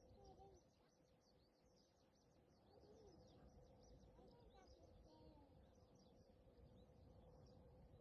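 Faint birdsong: many small birds chirping at once, with a few lower calls mixed in and a steady faint hum underneath.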